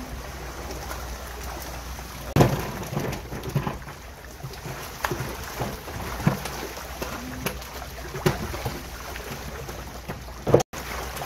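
A netful of fish thrashing at the water surface, an irregular run of splashes and sloshing, the loudest about two seconds in and again near the end.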